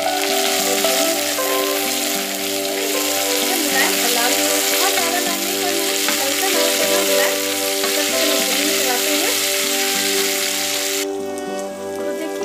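Chopped onions frying in hot mustard oil in a metal kadhai: a steady loud sizzle as they are stirred with a spatula. The sizzle drops away sharply near the end. Soft background music with held notes runs underneath.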